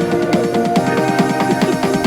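Electronic background music with a fast, steady beat and repeating synth notes.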